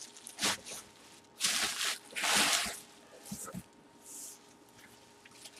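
Bubble wrap rustling and crinkling in a few short bursts as it is handled and pulled away from a football helmet packed in a cardboard box, with small clicks and taps between.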